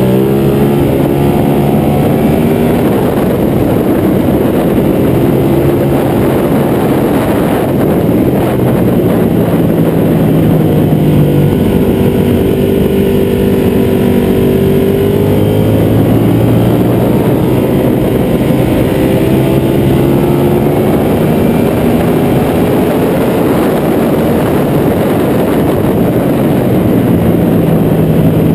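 Stock 2012 Ducati 1199 Panigale's 1198 cc Superquadro V-twin at track speed. The engine note climbs, holds and drops again as the bike accelerates and eases off through corners. Heavy wind rush sounds over it.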